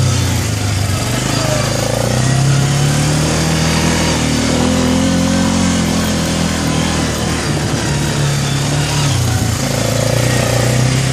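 Arctic Cat 400 4x4 ATV engine running in low range. Its pitch dips about a second in, rises through the middle, then dips again near the end before picking back up as the throttle is worked.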